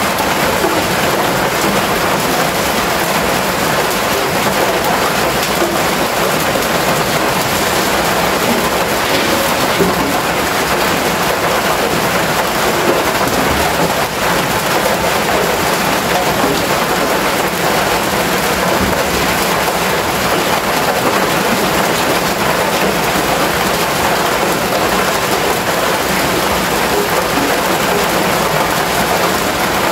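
Rain falling steadily on a corrugated metal roof: a dense, even hiss that does not let up.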